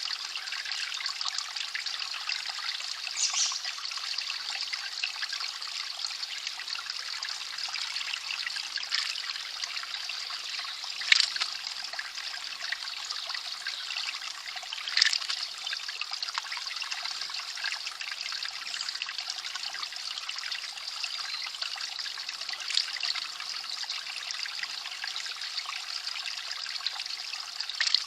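Steady trickle of water from a mountain spring, with a few brief, sharper sounds standing out, the loudest about 11 and 15 seconds in.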